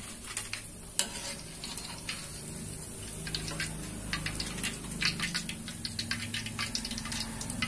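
Rempeyek kacang (peanut rice-flour crackers) frying in a wok of hot oil: a steady sizzle full of sharp crackles and pops, with the odd tap and scrape of the metal strainer and spatula against the wok.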